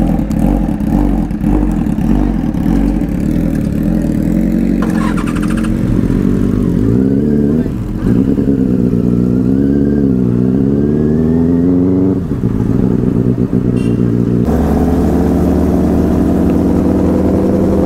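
Benelli 600i's inline-four motorcycle engine running at low revs from on the bike as it rides off slowly, the engine note rising and falling gently with the throttle in the middle, then settling to a steadier note near the end.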